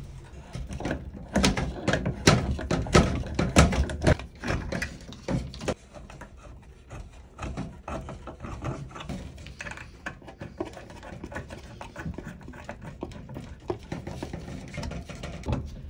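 Hand-work on a washer's water-supply hose connections at the wall valves: a dense run of small clicks and knocks in the first few seconds, then scattered, fainter clicks and handling rustle as the hose fittings are handled and threaded on.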